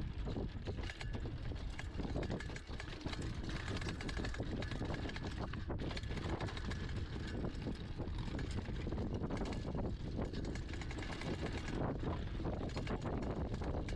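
Hardtail mountain bike riding down a rough dirt and gravel trail: tyres rolling over the ground while the chain and loose parts give a constant run of small rattles and knocks over the bumps, with wind buffeting the microphone throughout.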